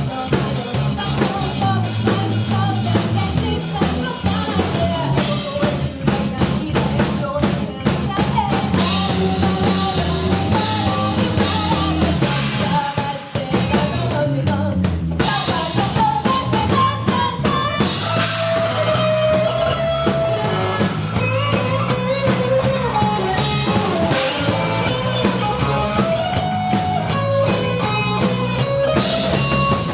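Band music: a drum kit with bass drum and snare over bass and guitar, with melodic lines on top. It breaks off briefly about halfway through.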